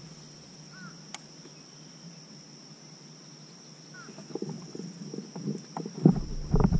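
A steady high insect drone with a few faint chirps, then from about four seconds in, irregular knocks and thumps on a plastic fishing kayak's hull and deck as the angler shifts to stand up, loudest near the end.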